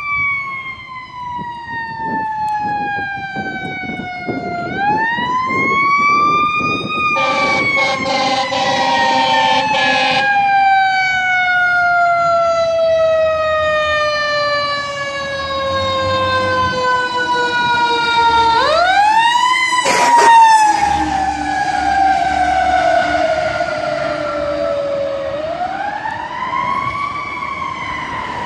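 Fire engine siren winding up three times and slowly winding down between rises, loud throughout. A steady blaring horn chord sounds for about three seconds in the first third, and a short loud burst comes about two-thirds of the way in.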